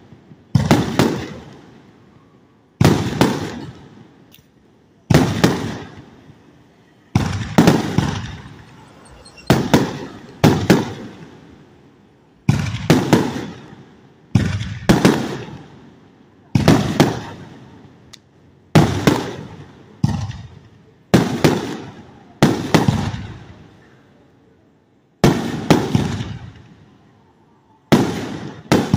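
A 36-shot 2.5-inch double-break firework cake firing shell after shell. Sharp bangs come about every one and a half to two seconds, often in close pairs, and each dies away in a rumbling tail.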